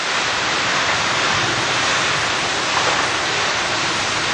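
Hailstorm: heavy hail and rain falling hard, a dense steady roar.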